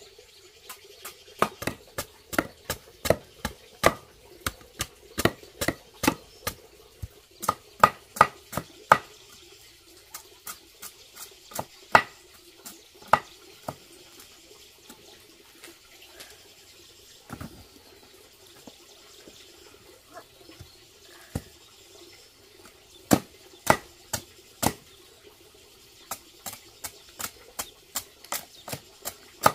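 Hooked knife chopping down the side of a raw cassava root to strip the peel, striking the tuber and the wooden board beneath: sharp strikes about two a second in runs, with a pause of several seconds in the middle.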